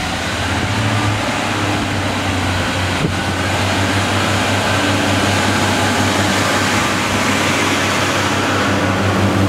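Class 142 Pacer diesel multiple unit's underfloor diesel engines running with a steady low hum as the train stands at the platform and then pulls away.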